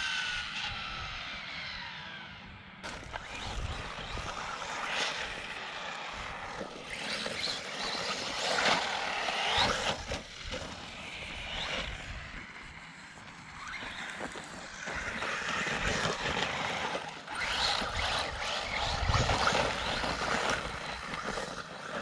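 Traxxas Slash 4x4 RC truck's brushless electric motor (Hobbywing 3660, 3200KV) whining in repeated bursts of throttle, its pitch rising and falling with each burst, over low rumble from the drivetrain and tyres.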